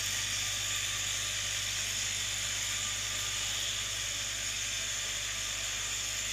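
Automatic bottle capping and sealing line running: a steady mechanical whir with a strong high hiss and a low hum underneath.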